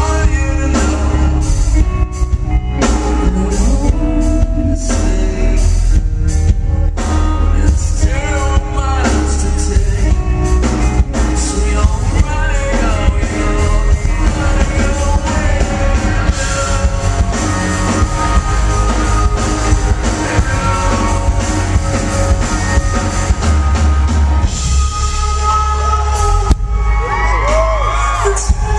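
Rock band playing live, a male singer's lead vocal over drums, bass and electric guitar, recorded loud on a small camcorder in a large concert hall. The heavy low end drops away briefly near the end before coming back.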